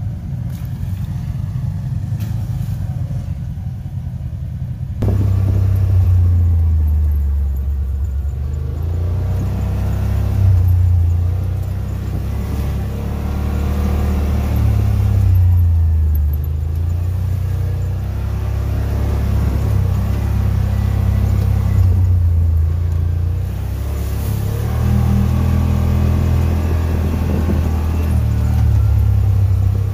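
Side-by-side UTV engine running, a low drone that rises and falls with the throttle as it drives a dirt trail, heard from on board. About five seconds in it gets suddenly louder; before that a quieter engine runs nearby.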